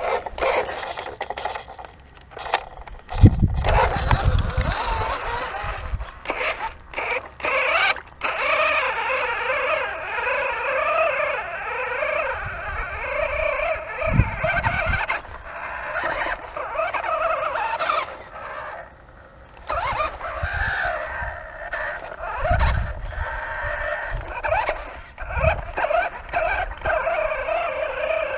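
Radio-controlled scale Mitsubishi Pajero off-road truck's motor and gears whining, the pitch rising and falling with the throttle as it crawls over rough ground, with scattered clicks and a few low thumps.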